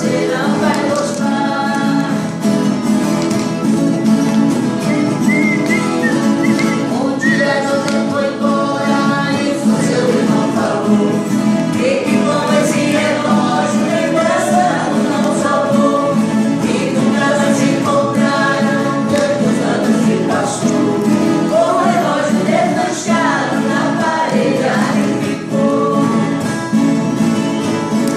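Voices singing a caipira cururu together over strummed viola caipira, at a steady, full level.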